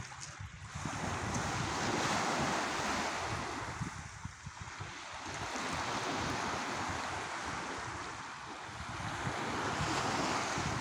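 Small sea waves breaking and washing up a pebble beach, swelling and ebbing about every four seconds, with wind buffeting the microphone.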